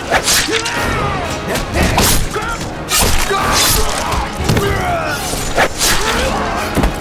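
Hand-to-hand fighting: repeated thuds and blows, one about every second, with men shouting and grunting, over background music.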